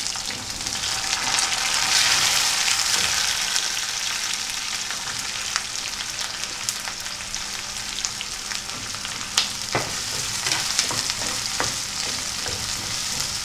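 Chopped onions sizzling in hot oil in a nonstick wok as they start to sauté. The sizzle is loudest a couple of seconds in. In the second half, a wooden spatula stirring them adds scrapes and sharp taps.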